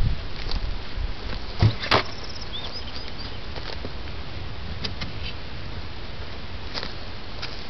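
Wooden beehive equipment being handled: two sharp knocks close together about two seconds in and a few lighter clicks later on, over a steady low rumble.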